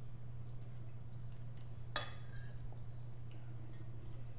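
Knife and fork working on a dinner plate, with one sharp ringing clink about two seconds in and a few faint ticks, over a steady low hum.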